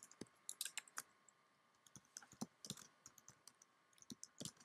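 Computer keyboard typing: faint, irregular runs of key clicks with a short pause in the middle.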